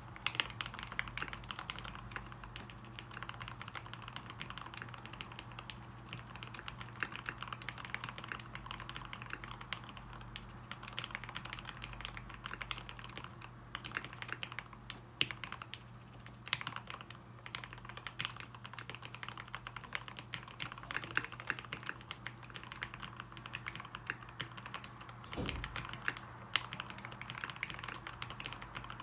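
Continuous typing on a Dolphin V3 custom mechanical keyboard fitted with lubed linear Tealios switches in Cherry top housings, 55 g springs and lubed stabilizers: a fast, even stream of key strokes. One deeper thump comes near the end.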